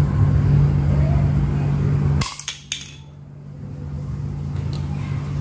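A steady low hum, then a few sharp clicks of hard plastic and metal about two seconds in, as the distributor rotor is pried off with a screwdriver and the parts are handled on a tile floor.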